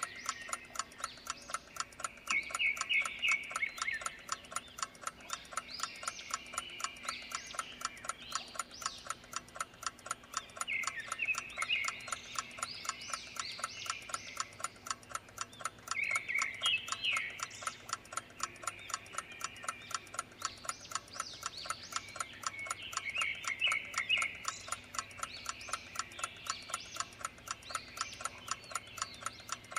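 A clock ticking at an even pace, with birds chirping in the background in short bursts every few seconds.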